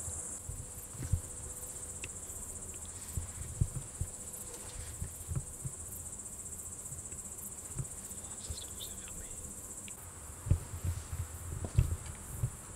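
Crickets trilling in a steady, continuous high-pitched chorus, with scattered dull low thumps that come more often in the last few seconds.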